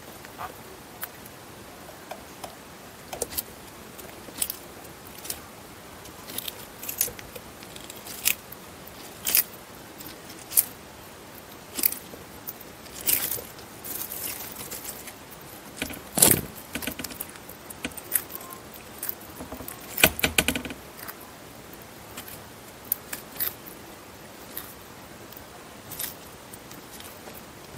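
Eastern Hermann's tortoise biting and tearing at fresh chicory leaves: irregular crisp crunching and snapping clicks, with a couple of denser, louder bursts of bites partway through.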